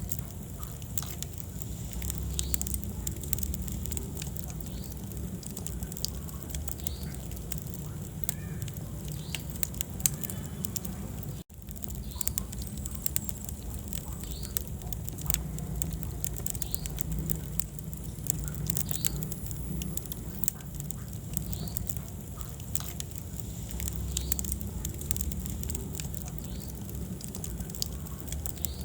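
Wood fire in a fireplace crackling, with many sharp pops and snaps over a low, steady rumble of the flames. The sound cuts out for an instant about eleven seconds in.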